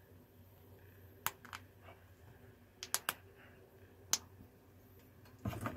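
Sharp plastic clicks of small 3D-printed parts being handled and pressed together by hand: single clicks spaced out, then a quick louder cluster of clicks and rattling near the end.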